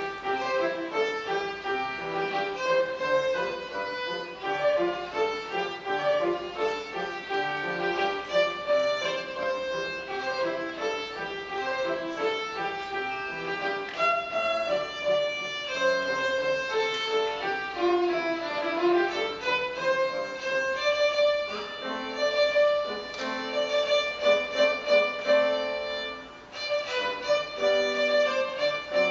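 Violin playing a melody with grand piano accompaniment, a student performing on stage; the music eases off briefly near the end before the violin comes back in.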